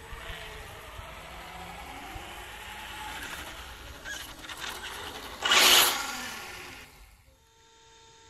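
An RC short-course truck driving on gritty tarmac: its motor whine rises and falls over the rattle of its tyres on the grit. About two-thirds of the way through comes a sudden loud rush lasting about half a second. Near the end the sound drops to a quiet, steady hum.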